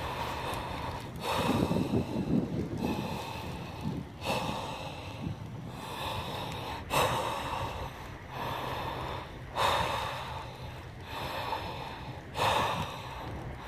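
A person breathing heavily and rhythmically, with a sharp, noisy breath about every second and a half.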